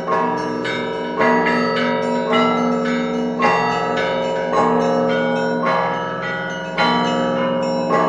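Russian Orthodox monastery bells rung together: a strong strike roughly once a second over a quick pattern of smaller, higher bells. The tones ring on and overlap.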